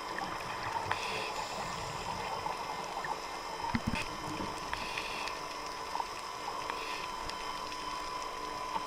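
Underwater ambience picked up through a dive camera's housing: a steady hiss with a faint steady tone, scattered small clicks, and a low thump about four seconds in.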